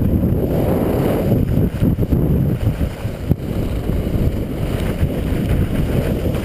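Wind buffeting the microphone of a camera carried down a ski run, a dense, rough low rumble, mixed with the scrape of skis over hard, windswept snow.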